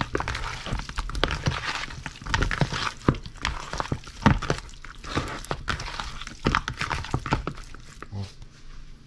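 Hands squeezing and tossing raw pork pieces coated in a salt, pepper and soy sauce marinade in a plastic bowl: irregular wet squelches and soft slaps, dying down near the end.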